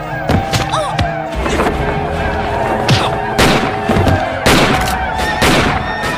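Film action score with music playing throughout, cut through by several sharp bangs and thuds, the loudest coming in the second half.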